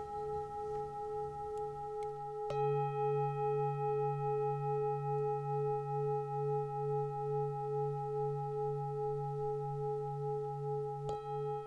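Singing bowl tones ringing steadily with a slow pulsing wobble, struck afresh about two and a half seconds in and again near the end.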